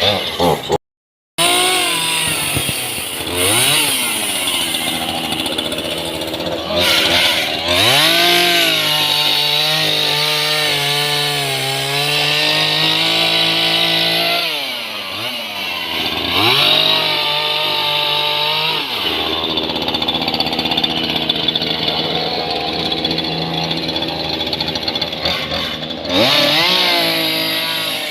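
Chainsaw revving up and cutting through the trunk of a fallen tree, its pitch rising as it speeds up into the cut and falling back several times. The sound cuts out for about half a second about a second in.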